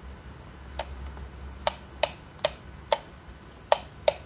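Comandante C40 hand coffee grinder's grind-adjustment knob being turned, about seven sharp clicks at uneven spacing, each click one step of grind-size setting.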